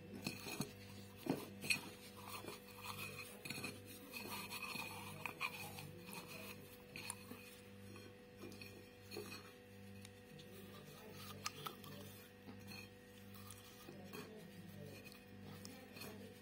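Raw quail being rubbed with dry spice mix in a glass bowl: soft scraping of fingers and spices with light knocks and clinks of the bird against the glass, the loudest in the first two seconds. A steady low hum runs underneath.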